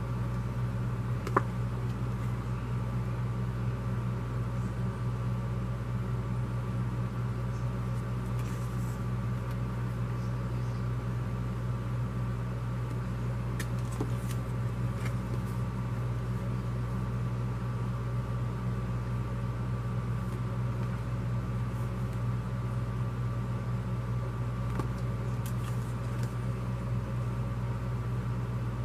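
Steady low mechanical hum, like a fan or air conditioner running in a small room, with a few faint taps and rustles of paper cards being handled.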